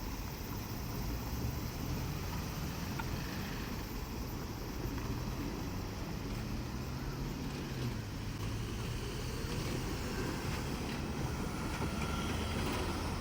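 Diesel engines of a JR KiHa 47 and KiHa 40 railcar pair running with a steady low drone, the pitch shifting slightly about eight seconds in.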